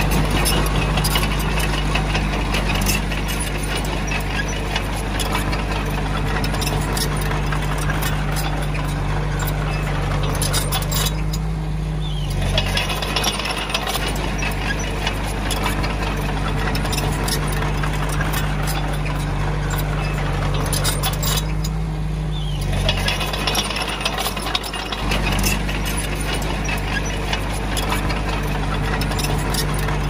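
Komatsu D20A crawler bulldozer's diesel engine running steadily while its steel tracks and the stone clank and rattle constantly. Twice, about 11 and 21 seconds in, the clatter briefly drops away for a second or so while the engine keeps running.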